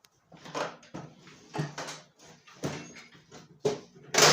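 Clanks and knocks of a microwave's sheet-metal casing being worked apart and bent, about one a second, the loudest near the end.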